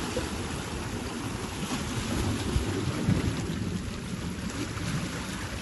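Sea waves surging and washing over shoreline rocks: a steady rush of water with a deep rumble and a few stronger surges about halfway through.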